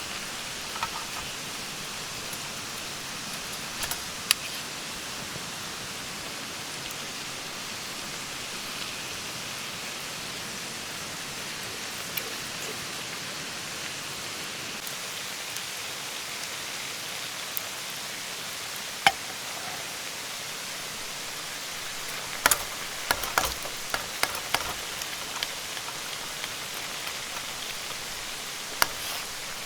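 Steady rushing of a mountain stream, with scattered sharp clicks and taps on top, several in quick succession about three-quarters of the way through.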